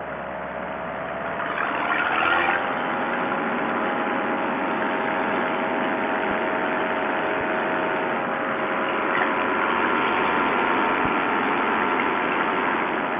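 Two-stroke paramotor engine running steadily in flight; its pitch rises a little about two seconds in, then holds.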